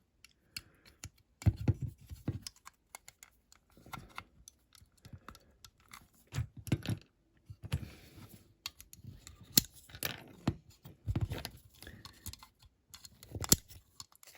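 Irregular clicks, scrapes and light knocks of a small tool and fingers prying at the door of a 1:64 diecast model car on a workbench.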